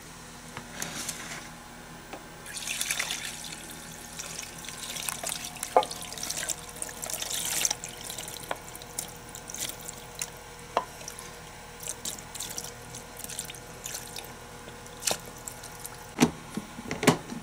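Onion brine poured from a saucepan over raw chicken pieces in plastic containers, splashing and trickling, with a few light knocks scattered through.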